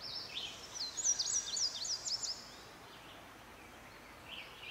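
A songbird singing: a quick run of high chirping notes for about two seconds, then a shorter phrase near the end, over faint outdoor background.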